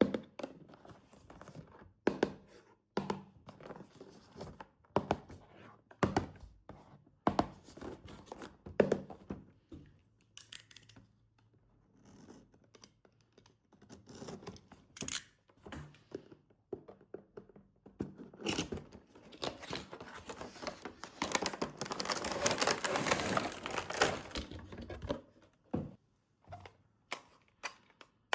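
Toy packaging being handled and opened: a string of knocks and clicks from plastic and cardboard, then several seconds of steady tearing and crinkling of packaging about two-thirds of the way through.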